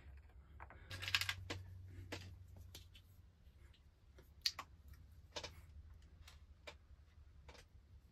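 Scattered light clicks and taps of small tools and wooden parts being handled on a workbench, with a brief rustle about a second in.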